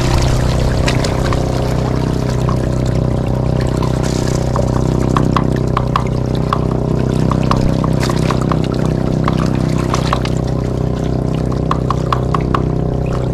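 Water splashing and trickling over a steady engine hum, with scattered small splashes throughout.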